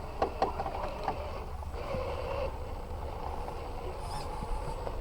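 A radio-controlled scale crawler working over rough ground. There are a few sharp clicks and knocks early on, and its small electric motor and gears whine briefly about two seconds in, over a steady low rumble.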